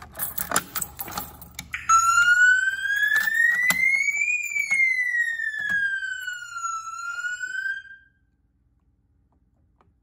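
Keys rattling and clicking in a pull-station lock, then a fire alarm sounder on the addressable system sets off a loud siren tone that glides slowly up, slowly down and starts to rise again. The tone cuts off suddenly about eight seconds in as the alarm is silenced at the panel.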